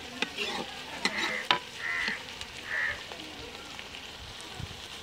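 Sliced onions sizzling in hot ghee in an aluminium karahi, with a metal ladle scraping and knocking against the pan, the sharpest knock about a second and a half in. Three short honk-like calls come in between about one and three seconds in.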